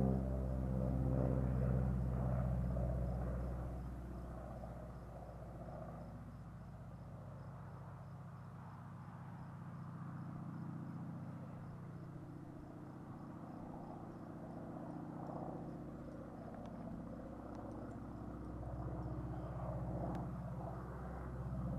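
Air Tractor crop-dusting airplane's engine and propeller drone overhead, loud at first, then fading over the next few seconds as the plane flies away, and swelling a little again near the end.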